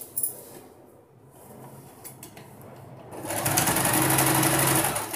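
Soft rustling of cloth being arranged, then a Singer sewing machine running a short stitching burst of about two seconds near the end, a rapid steady needle stroke over a low motor hum, stopping just before the end.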